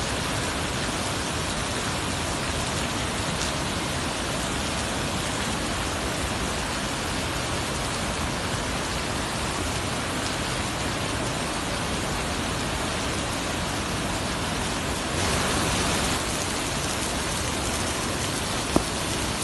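Waterfall: a steady rush of falling water, briefly louder about fifteen seconds in, with a single sharp click near the end.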